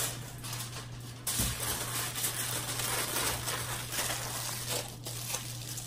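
Aluminium foil sheet pulled from its box and crinkled by hand as it is wrapped around a sweet potato. It is an uneven crackling rustle that gets louder about a second in.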